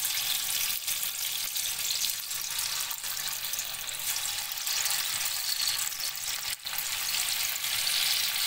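Marinated chicken pieces deep-frying in hot oil in a kadhai: a steady, dense sizzle as the pieces are added one at a time.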